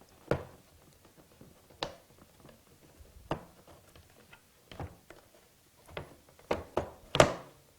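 Sharp plastic clicks and knocks, about eight in all and closest together near the end, as a brush roll is stretched against its new drive belt and seated into an upright vacuum's floor head.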